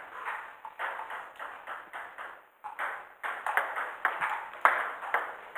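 Table tennis balls clicking sharply off bats and tabletops, several irregular hits a second from rallies at more than one table, with a brief lull about halfway.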